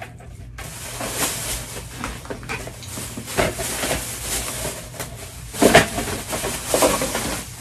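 Rustling and handling noise of purchased items being moved about, with a few short, louder knocks.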